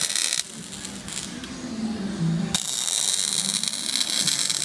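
Robotic MIG welding arc crackling and hissing. It breaks off about half a second in, leaving a lower hum, and strikes up again about two and a half seconds in.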